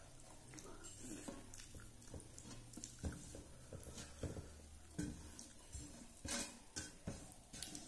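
Fingers mixing rice on a metal plate: scattered soft taps and scrapes of hand and food against the metal, a little louder and more frequent in the second half.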